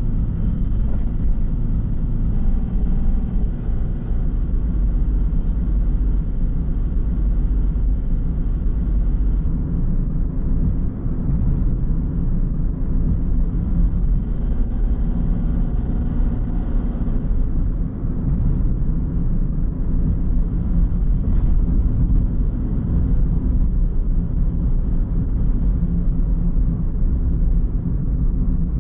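Car driving at steady speed: a constant low rumble of engine and tyres on the road.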